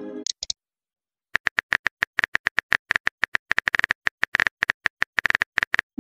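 Simulated phone-keyboard typing clicks from a texting-story app, a quick even run of several taps a second for about four and a half seconds while a reply is typed out. Before the typing there is the fading end of a message chime and a couple of taps. A rising send whoosh starts at the very end.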